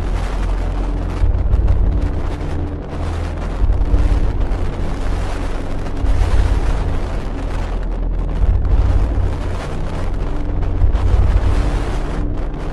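Strong wind blasting the microphone: a loud, continuous roar with a heavy low rumble that rises and falls in gusts.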